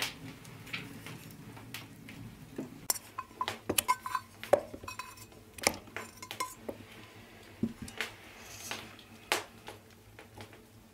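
Metal dishes clinking and knocking against a metal pot as cubed butter is scraped in, with scattered sharp taps and a few short metallic rings.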